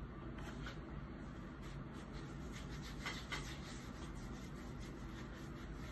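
Faint soft rubbing with a few light scratchy strokes: fingertips working face primer into the skin, over a low steady room hum.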